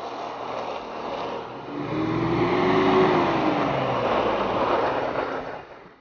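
Off-road 4x4 vehicle driving up close on a snowy dirt track: engine running and tyres on the snow and gravel, growing louder as it approaches, with the engine note rising and then falling as it nears. The sound drops away sharply at the very end.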